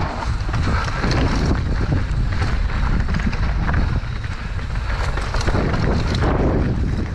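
Mountain bike descending a rocky trail at speed: wind buffeting the action-camera microphone over the rumble of tyres on rock and dirt, with frequent knocks and rattles as the bike hits bumps.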